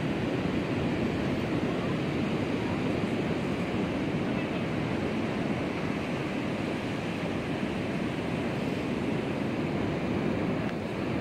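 Steady rush of ocean surf breaking on the beach, mixed with wind.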